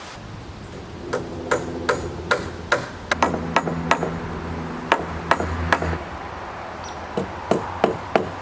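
Hammer striking nails into wood wall framing in steady runs of about two and a half blows a second, with a short pause past the middle, over a low hum.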